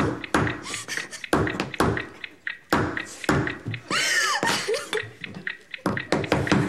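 Walnuts in the shell being bashed to crack them without a nutcracker: a string of hard, irregular knocks, a few a second. Between the knocks come short vocal squeals, one rising and falling about four seconds in.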